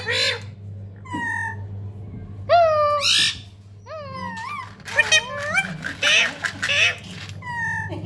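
Rose-ringed parakeet (Indian ringneck) calling: a string of short chirps and squawks that glide up and down in pitch, coming thickest in the second half.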